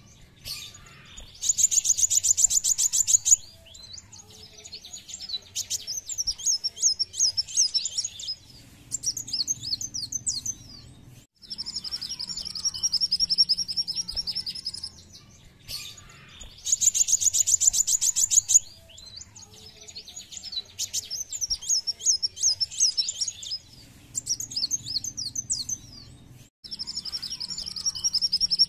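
Kolibri wulung sunbird song: rapid high trills and twittering chirps, with a steady buzzing trill, in a sequence that repeats about every 15 seconds, like a looped lure recording used to get caged birds singing.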